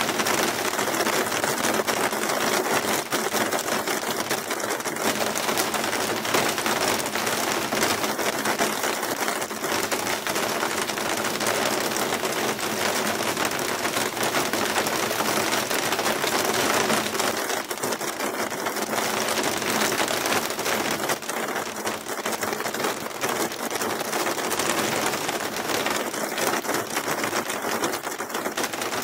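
Hail and heavy rain pelting terracotta roof tiles, a steady dense clatter of countless small impacts.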